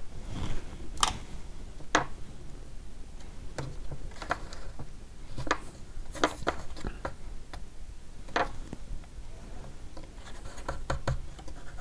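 Small irregular clicks and taps with faint rubbing from fingers pressing and bending a thin wooden moulding strip against a wooden model ship's hull.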